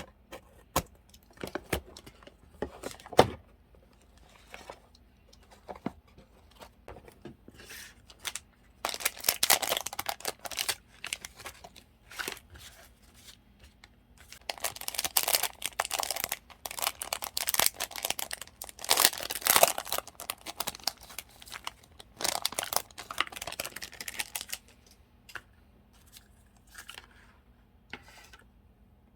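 Paper and plastic packaging of stationery and stickers being handled: a few light taps and clicks at first, then spells of crinkling, rustling and tearing-like sounds a third of the way in and again through the middle.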